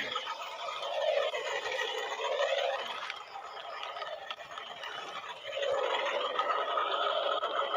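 Small electric motors and plastic gearboxes of a radio-controlled toy construction vehicle whirring, their pitch rising and falling as they speed up and slow down, quieter in the middle and louder again near the end.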